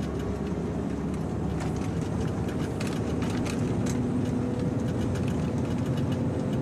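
Truck driving at steady speed, heard inside the cab: a steady low engine and road rumble, with a lower hum joining about four seconds in and scattered light ticks.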